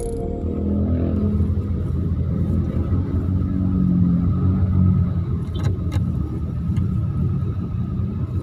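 Low, steady rumble of a car's engine and slow traffic heard from inside the cabin, with a few faint clicks about halfway through. The tail of a soft intro music track fades out in the first second or so.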